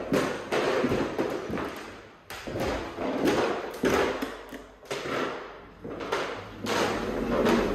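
Dull thuds and rough rustling from a handheld phone being carried at a walk, several surges each a second or two long: footsteps and handling noise.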